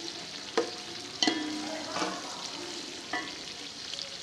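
Sliced onions sizzling in oil in a large aluminium pot as they are fried toward golden, stirred with a long metal spoon. The spoon strikes the pot about four times, each a sharp clank with a brief ring.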